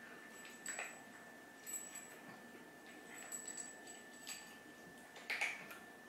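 Two cats eating from their bowls: about five short crunching or clinking sounds at irregular intervals, the loudest near the end, over a faint steady high-pitched electrical whine.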